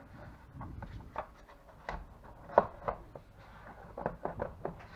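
Irregular light clicks and knocks of plastic casing parts and small screws being handled as a car fridge is put back together, with one sharper knock about halfway through.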